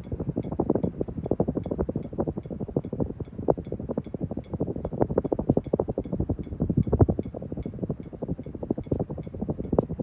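Dynasty CF-HA52 52-inch hugger ceiling fan running, with a rapid, irregular clinking rattle throughout.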